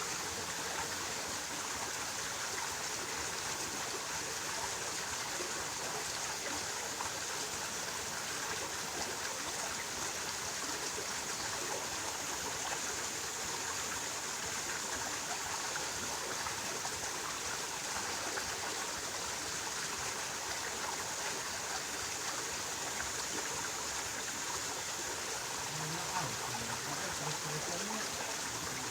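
Steady rushing of a flowing stream, constant without pauses. A faint low voice is heard near the end.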